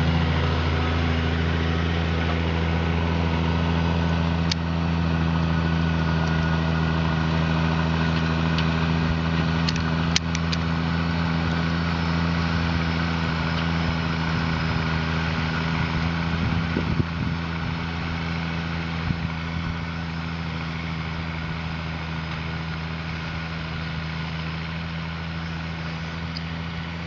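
A farm machine's engine running steadily at an even speed, with a few short clicks and knocks, slowly growing quieter toward the end.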